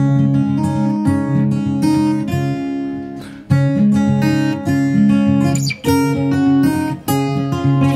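Background music: acoustic guitar playing strummed and plucked chords in a steady rhythm.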